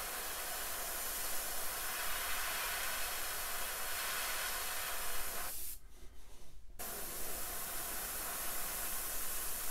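Gravity-feed airbrush spraying paint: a steady hiss of air and paint that stops for about a second a little past halfway as the trigger is let off, then starts again.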